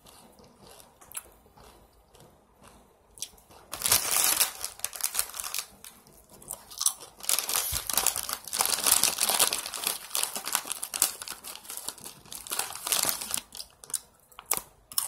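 Plastic chip bag of Dinamita rolled tortilla chips crinkling loudly in bursts as a hand rummages inside it, starting about four seconds in and going on for most of the rest, with some crunching of the chips.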